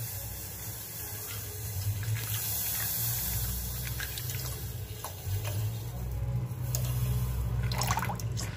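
Milk poured in a steady stream into a steel pot of boiling water, a liquid splashing and filling sound over a low steady hum, with a few sharper splashes near the end as the stream thins.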